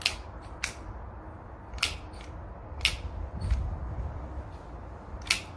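A Glock 17 Gen 4 replica CO2 blowback BB pistol firing: about five sharp, irregularly spaced pops with the slide cycling. Wind rumbles on the microphone underneath.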